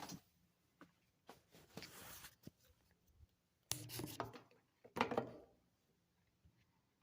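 Rustling, rubbing and scraping of objects being handled, with a few sharp clicks; the loudest scrapes come about four and five seconds in.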